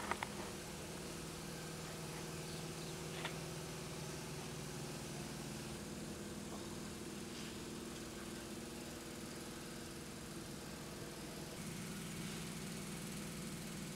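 Steady mechanical hum of a running machine, with a few short clicks near the start and one about three seconds in.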